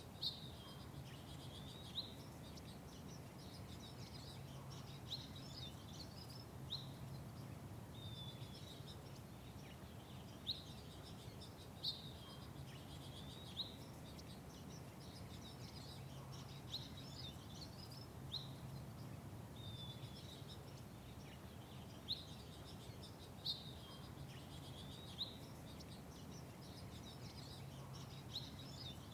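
Small songbirds chirping: short, sharp, high chirps repeating every second or two, over a low steady background rumble.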